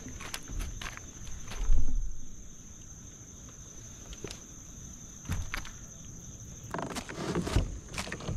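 Insects trilling steadily at a high pitch, with scattered knocks and clicks over it; the loudest is a low thump about two seconds in, and more knocking comes near the end.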